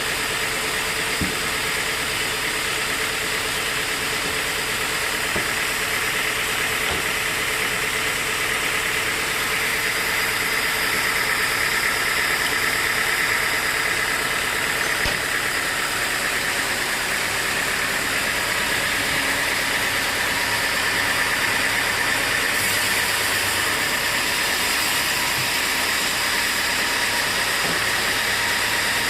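Sawmill machinery running steadily: a loud, even mechanical drone with a constant hum and a high hiss that strengthens about ten seconds in.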